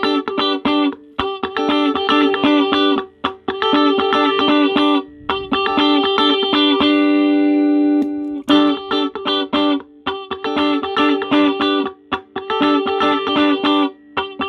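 Clean electric guitar, a Sterling JP60, played through a small practice amp. Quick picked notes and arpeggios ring over two held low notes, in phrases with a pause of a few seconds about five seconds in.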